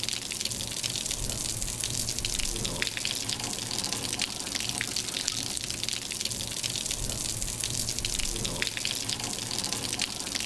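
Water running across a tiled balcony surface and trickling through the slots of its edge drainage profile into the gutter: a steady splashing with many small drips and spatters.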